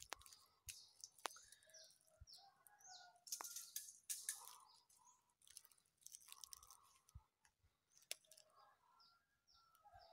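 Faint, irregular crunching of footsteps on dry fallen leaves, with scattered small bird chirps.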